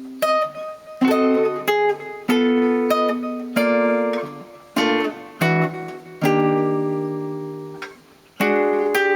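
Solo guitar playing a slow jazz chord-melody passage: about nine separate plucked chords, each left to ring and fade before the next.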